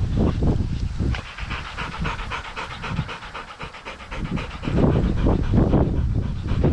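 A hunting dog panting quickly and evenly close to the microphone. Before and after the panting, about the first second and from about five seconds in, wind buffets the microphone.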